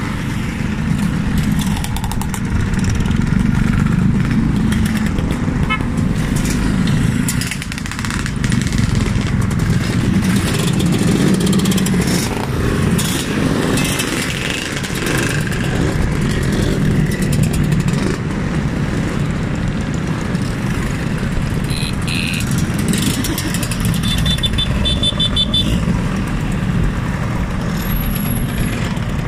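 A procession of classic and modern motor scooters riding past one after another, their small engines making a continuous mixed drone. A few short high-pitched beeps sound in the second half.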